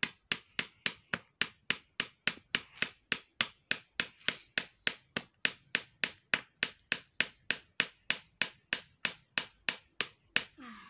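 Hammer knocking a nail into a wooden stick joint: a quick, even run of blows, about four a second, that stops shortly before the end.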